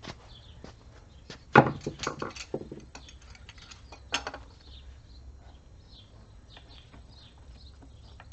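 Hand tools knocking and clinking against a metal transfer case being worked apart: a quick cluster of sharp knocks about a second and a half in, another single knock around four seconds, then light scattered ticks.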